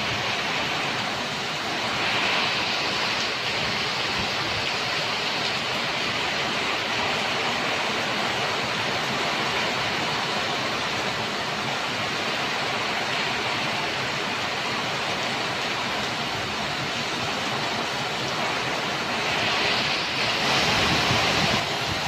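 Heavy thunderstorm downpour: a steady, loud rush of rain pouring off a roof edge and beating on foliage. It swells briefly about two seconds in and again near the end.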